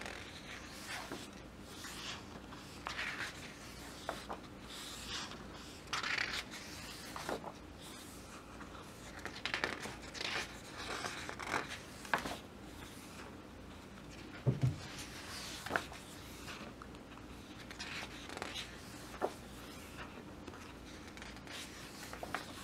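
Pages of a large photo book being turned by hand: repeated short paper swishes and rustles, with a few light ticks and one soft low thump about two-thirds of the way through.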